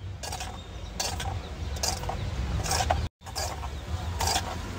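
Steel spoon scraping and clinking against a steel bowl as bread pieces are turned in beaten egg: about six separate strokes, over a steady low hum. The sound drops out briefly about three seconds in.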